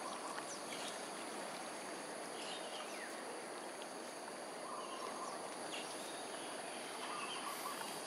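Steady rush of flowing canal water, with a few short, faint high chirps scattered through it.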